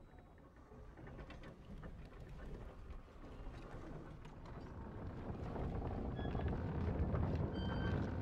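Low rumbling wind noise that slowly grows louder, with faint scattered clicks.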